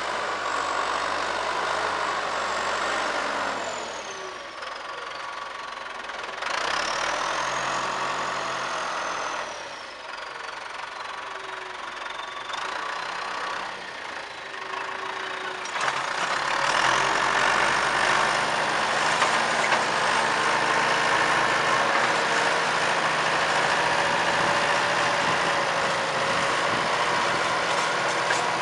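Diesel engine of a John Deere tractor running under load as it pulls a chisel plow through the soil, its pitch sagging and rising again several times. Louder and steadier from about 16 seconds in.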